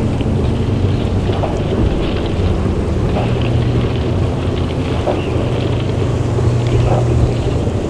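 Steady, loud low rumbling drone with a constant deep hum underneath and faint crackles scattered above it, from the projection's ambient soundtrack.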